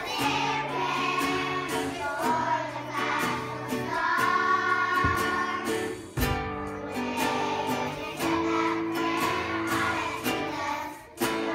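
Children's choir singing in unison to acoustic guitar accompaniment, with short breaks between phrases.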